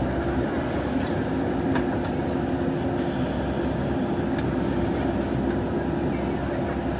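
JCB 3DX backhoe loader's diesel engine running steadily under work, with a few faint clicks over the engine note.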